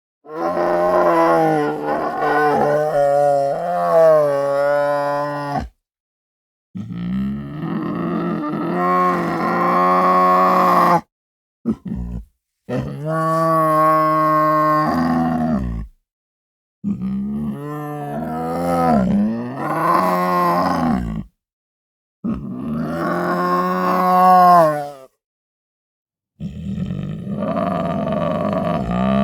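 Tiger roaring: six long, drawn-out roars of several seconds each, separated by about a second of silence, with one short grunt between the second and third.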